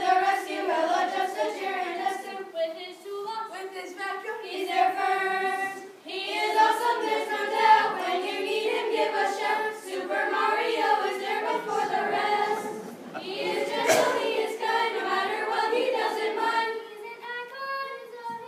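Children's choir singing together, the voices thinning toward held notes near the end, with a single sharp click about three-quarters of the way through.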